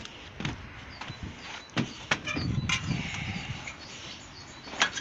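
A scattered series of sharp clicks and knocks, about five in all and the last one the loudest, over a low uneven rumble of handling or movement.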